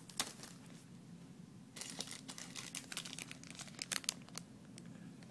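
Clear plastic bag holding model-kit parts runners crinkling as it is handled, a sharp click just after the start, then a dense run of crackles from about two seconds in until past four seconds.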